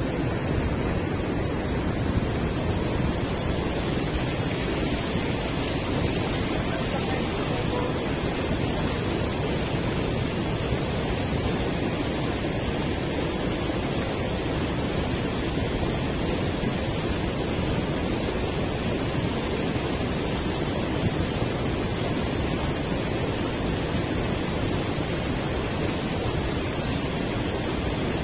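River water rushing steadily over a low concrete weir into white water below, a constant even wash of noise.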